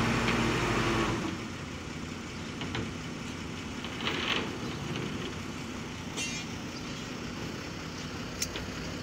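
Boom truck's diesel engine running steadily, its hum dropping lower and quieter about a second in. A few light metallic clinks of the lifting chain being handled come over it, the sharpest near the end.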